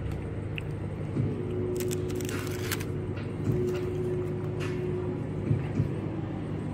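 Microwave oven running, heating a plate of food, with a steady mains hum, a higher whine through the middle and a few light clicks.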